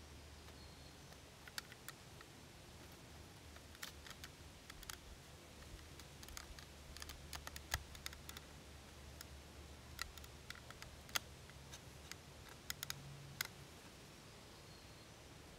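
Faint, scattered small clicks and taps of hands handling a cedar backpack frame and its cloth panel, over a faint low hum.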